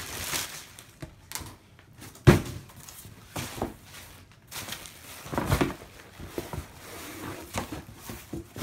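Cardboard boxes being handled: a sharp thump about two seconds in, then more knocks, scrapes and rustling as a shoebox in bubble wrap is pulled out of a shipping box.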